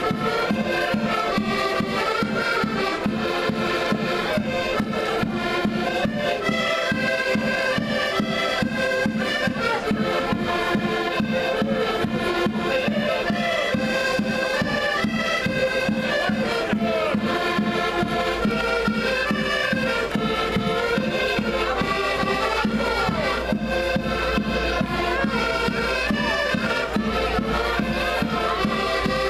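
Several accordions playing a tune together over a steady, rhythmic bass pulse.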